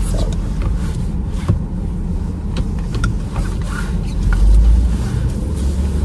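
Steady low rumble of a car's engine heard inside the cabin, swelling briefly about four and a half seconds in, with a few small clicks and rustles.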